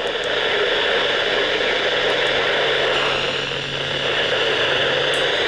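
Steady hiss of radio static, confined to a narrow radio-like band, with a faint low hum beneath it.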